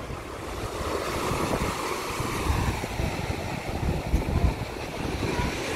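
Wind buffeting the microphone with an irregular rumble, over a steady wash of surf.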